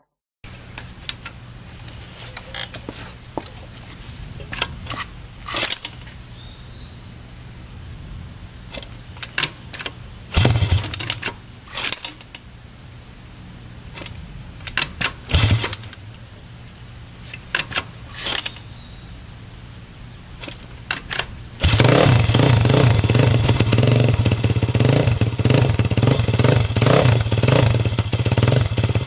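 Freshly assembled motorcycle engine running: a steady low hum with scattered clicks and knocks over it. About two-thirds of the way through it suddenly becomes much louder, a dense pulsing engine sound.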